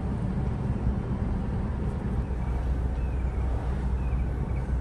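Steady road and wind rumble inside a moving car with a side window open.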